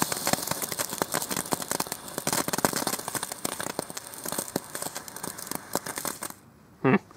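Weco Crazy Chicken ground fountain spraying sparks with dense, irregular crackling, which stops abruptly about six seconds in as the fountain burns out.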